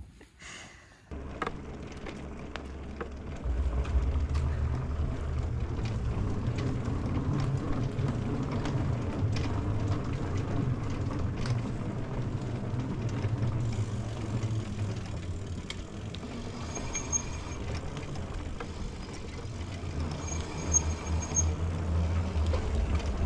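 Steady low rumble of wind on the microphone and rolling tyres while riding an electric bike. It starts about a second in and grows louder a few seconds later.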